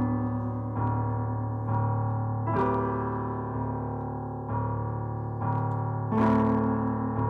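Piano music: slow sustained chords, a new chord or note struck about every second, with brighter attacks about two and a half seconds in and again near the end.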